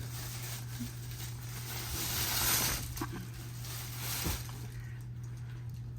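Soft rustling and swishing of a freshly unpacked shredded memory foam body pillow being handled as it expands, swelling louder about two seconds in and fading, with a light knock about four seconds in.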